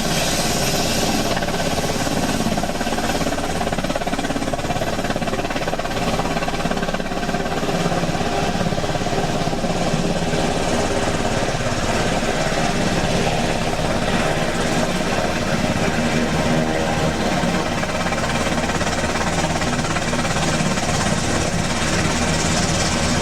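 Cessna 172's four-cylinder piston engine and propeller running steadily at low power on the ground, heard from inside the cockpit as an even drone.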